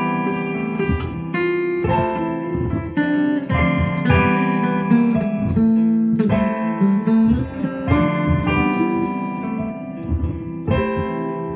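Guitar playing: a quick run of plucked notes and chords, one after another, over low bass notes.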